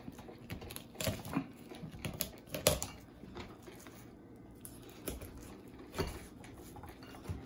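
Kitchen knife cutting the head off a whole red snapper on a plastic cutting board: irregular short clicks and knocks as the blade works through the fish behind the head.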